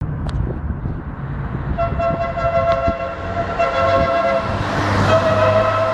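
Multi-tone 'Ferrari' musical horn on a Fiat Doblò, sounding a series of held notes with short breaks, starting about two seconds in, over a low hum.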